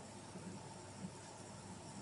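Quiet room tone: a faint steady hiss with a few soft, small ticks.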